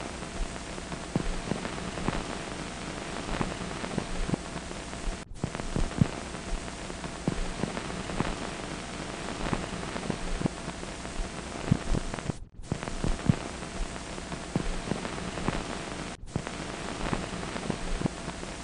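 Hiss and dense crackle of a worn 1940s optical film soundtrack, full of small pops, with a faint steady hum underneath. It cuts out to silence briefly three times, as if at splices.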